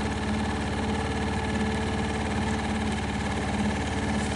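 A boat's engine running steadily at low speed, a constant drone with an even low pulse.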